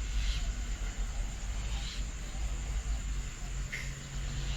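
A steady low rumble with a low hum, like distant engine noise. Three short bird calls sound over it: near the start, about two seconds in, and near the end.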